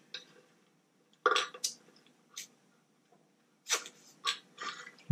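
Drinking through a titanium straw: a few short sips and swallows, heard as brief separate mouth sounds with quiet between them.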